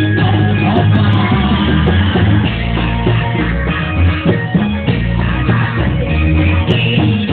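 Loud Reog Indramayu accompaniment music played through loudspeakers, with a woman singing into a microphone over it.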